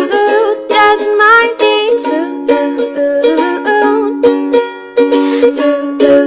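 Background music with quick plucked string notes over steady held chords.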